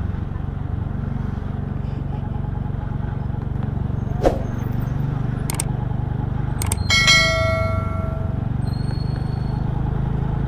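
Scooter engine running steadily at low road speed. Over it plays an edited-in subscribe-button sound effect: a few sharp mouse clicks, then a bell chime that rings for about a second and a half.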